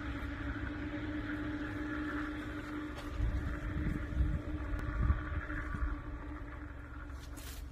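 Steady hum of a running motor with a low rumble that swells about three to five seconds in, then eases off.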